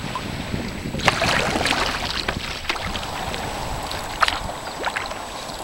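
Kayak being paddled through calm sea water: a steady swish of water with irregular sharper splashes from the paddle blades, starting about a second in, and a low wind rumble on the microphone.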